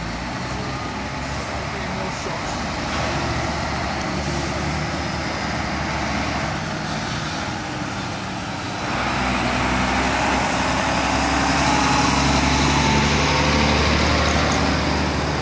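Diesel engine of a Volvo articulated lorry running at low speed as it hauls a fairground ride trailer past, with other heavy lorries idling behind. It gets louder from about nine seconds in, as the lorry draws close.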